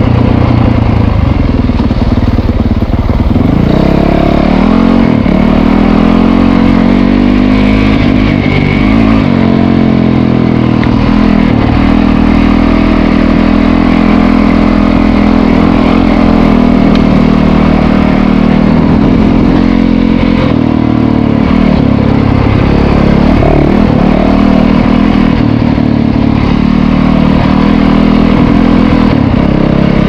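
Dirt bike engine running under way along a dirt road, its pitch rising and falling several times as the throttle is opened and closed.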